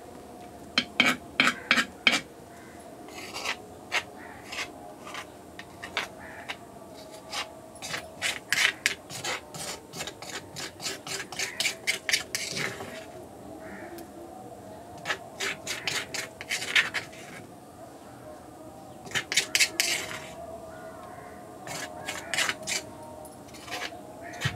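Stone pestle grinding a wet red chili-spice paste in a stone mortar: gritty stone-on-stone rubbing strokes that come in quick runs with pauses between. Near the end a spoon scrapes the paste against the stone.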